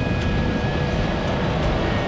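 Diesel heavy equipment running steadily under load, with a faint high whine over the engine noise.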